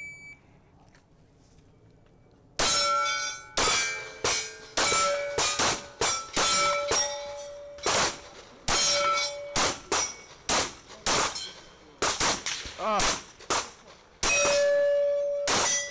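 A shot-timer beep, then, after about two and a half seconds, a string of more than a dozen shots from a 9mm Glock 19 pistol. Many shots are followed by the ringing clang of steel plate targets being hit, with one longer ring near the end.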